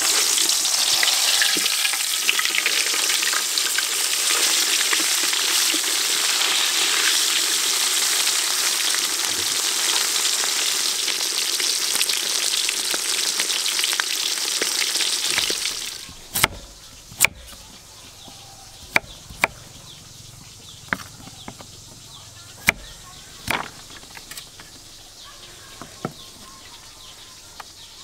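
Whole piranha deep-frying in hot oil in a wok: a steady, loud sizzle for about the first fifteen seconds, which then cuts off suddenly. After that come about eight sharp knocks, spaced unevenly a second or two apart.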